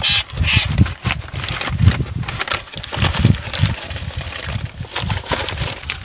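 Handling noise from wrapping a caught bird in a brown paper sleeve: paper rustling and irregular low knocks and bumps as the sleeve is handled and tied with string.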